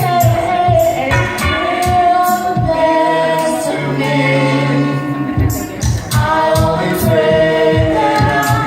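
Music with a steady drum beat and a sung melody held on long notes.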